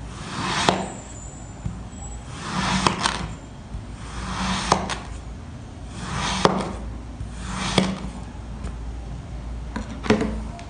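Kinetic sand being sliced with a knife, six cuts about one and a half to two seconds apart. Each cut is a short gritty swish that ends in a sharp click.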